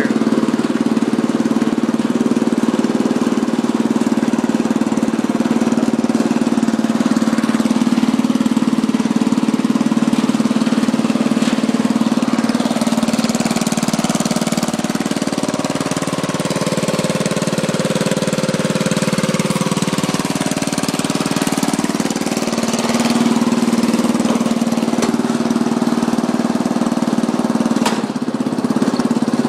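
Murray riding lawn mower's engine running as the mower drives across grass. The engine note drops for several seconds midway, then picks back up.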